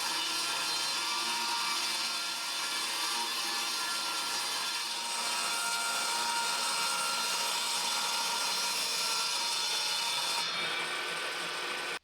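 Power saw ripping a one-inch wooden board lengthwise, running steadily with a whine through the cut.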